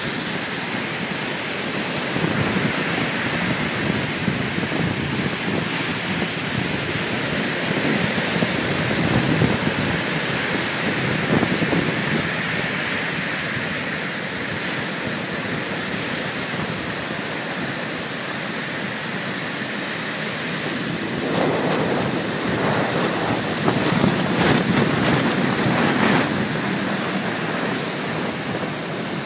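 Heavy storm surf breaking and washing ashore in strong wind, the wind also buffeting the microphone. A continuous wash of noise that swells louder several times, most strongly about three-quarters of the way through.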